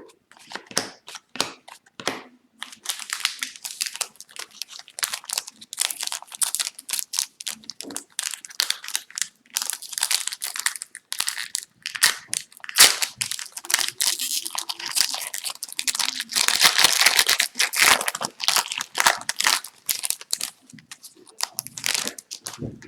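Plastic foil wrapper of a hockey card pack crinkling and tearing as it is opened and handled, a dense crackle with many sharp clicks that starts about three seconds in.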